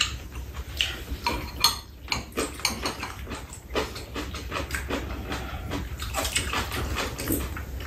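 Eating at a table: chopsticks and spoons clicking and clinking against ceramic bowls many times, with chewing and slurping of soup and bean sprouts.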